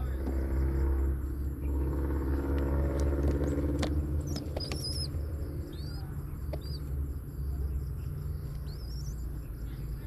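A steady low rumble, with a motor-like drone over the first half that fades out about five seconds in. A few short, high, rising chirps of birds come through in the middle.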